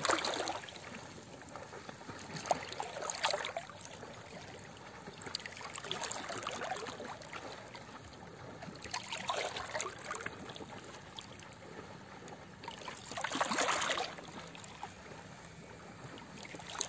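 Sea water lapping and sloshing against the side of a small boat, coming in irregular surges every few seconds, the loudest about thirteen seconds in.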